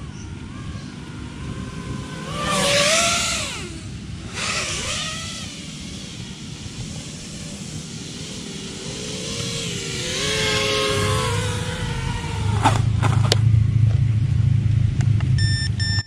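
FPV freestyle quadcopter's motors and propellers whining as it flies, the pitch rising and falling with the throttle, heard from the ground; the loudest pass is around three seconds in. From about eleven seconds a loud low rumble sets in, with a couple of sharp clicks, and a few short beeps sound just before the end.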